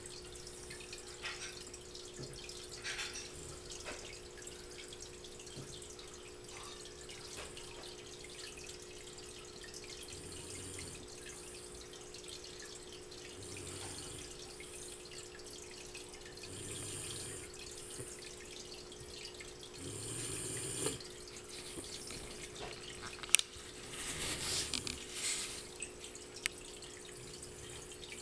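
A sleeping pet snoring, one soft snore about every three to four seconds.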